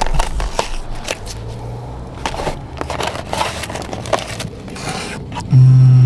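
Crackling and crinkling of takeout food packaging being opened and handled, with many small sharp clicks. Near the end a loud, steady low hum starts and holds.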